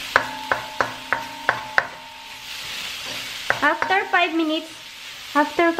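A wooden spoon stirring and scraping cauliflower rice in a stainless steel pan, knocking against the pan about three times a second during the first two seconds. A soft sizzle of the rice frying is heard under it.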